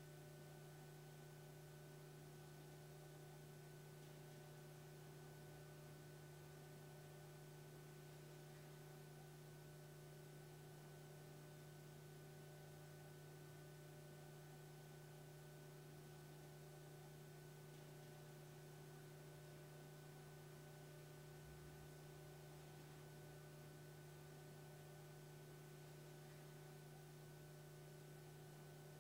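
Near silence: a faint, steady electrical hum with a few fixed tones over light hiss.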